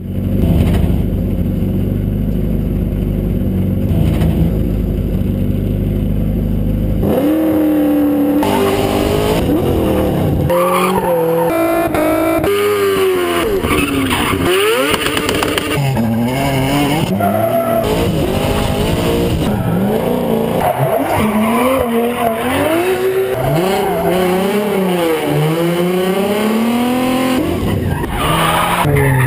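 Gymkhana car engine idling with a low, steady rumble for about seven seconds, then driven hard: the engine revs up and down again and again while the tires squeal as the car slides.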